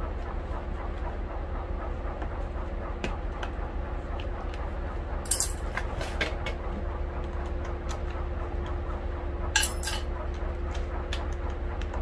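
Clicks and rattles of a small screwdriver and fingers working at the plastic housing and wiring connector of a vehicle cool box, with two louder clatters about five seconds in and near ten seconds, over a steady low hum.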